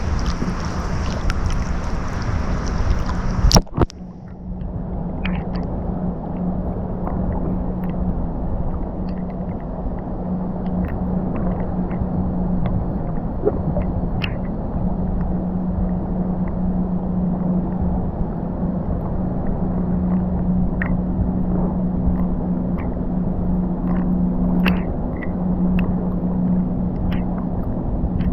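Ocean surf noise that cuts off with a click a few seconds in. A steady low rumble follows, carrying a constant engine-like hum, typical of a boat motor running offshore.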